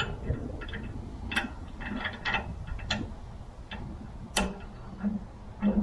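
Irregular clicks and taps of hardware and hand tools being handled while the blower rack is assembled, the loudest a sharp click about four and a half seconds in.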